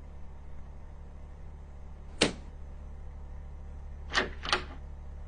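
A husky's paws knocking against a wooden door as it leaps up at the handle: three short sharp knocks, one about two seconds in and two close together near the end, over a steady low hum.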